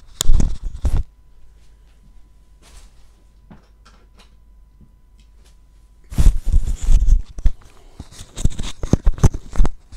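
Rustling, crackling handling noise with many sharp clicks and knocks close to the microphone, in a short burst at the start and a longer one from about six seconds in, with a quiet stretch of faint ticks between.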